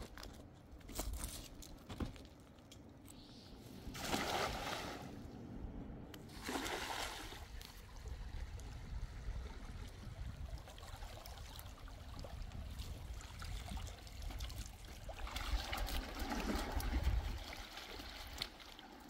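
Water splashing and sloshing in surges, a short one about four seconds in, another near seven seconds, and a longer one near the end, over a steady low rumble.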